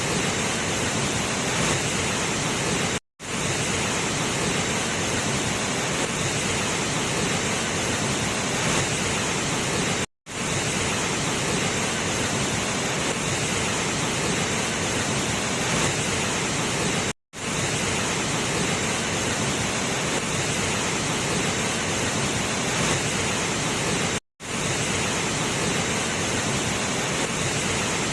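Waterfall pouring: a steady, dense rush of falling water. It is broken four times by a sudden, very brief drop to silence, about every seven seconds.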